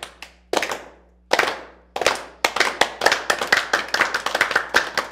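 A small group doing a slow clap: a few single hand claps spaced well apart, then about two seconds in the clapping quickens into fast, continuous applause.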